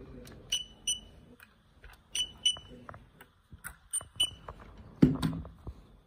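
Handheld inkjet coding printer giving short high electronic beeps, three pairs of them each about a third of a second apart, as it prints onto paper, with light clicks of handling between. A heavier thump comes about five seconds in.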